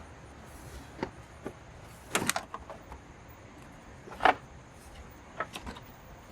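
Scattered metallic clicks and knocks as the battery's retaining bracket and parts are handled and positioned in the battery tray, with a quick cluster about two seconds in and the loudest knock a little past four seconds.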